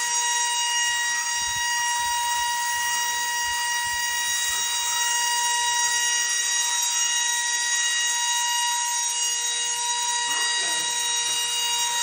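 Sharper Image Gravity Rover wall-climbing remote-control car running its suction fan, a steady high-pitched whine that holds one pitch as it drives up the wall.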